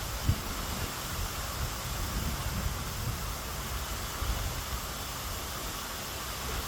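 Outdoor ambient noise: a steady hiss with irregular low rumbling buffets, typical of wind on a phone microphone.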